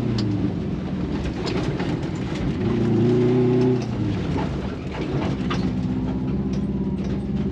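Rally car engine heard from inside the cabin on a gravel track: the engine note drops off at the start, climbs back to a held note for about a second around the three-second mark, then eases to a lower steady run as the car slows. Scattered sharp clicks and knocks from gravel and the stripped cabin run through it.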